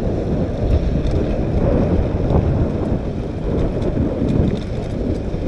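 Steady wind rush buffeting the camera's microphone as a mountain bike rolls along a dirt trail, with scattered light clicks and rattles from the bike.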